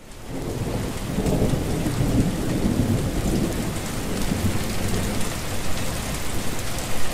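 Steady rain with low thunder rumbling underneath. It fades in quickly at the start.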